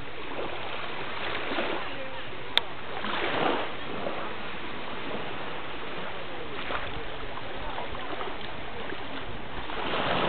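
Golden retriever swimming and then wading through shallow sea water, its splashing growing louder near the end as it rises onto its legs, over a steady wash of water. A single sharp click about two and a half seconds in.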